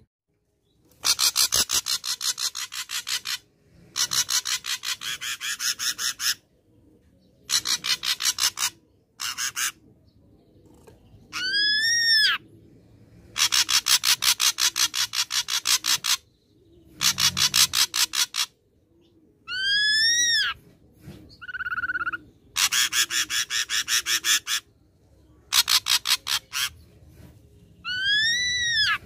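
Ashy drongo singing: bursts of rapid repeated notes lasting one to three seconds, broken by short gaps, with three rising-then-falling whistled notes mixed in and one short steady note.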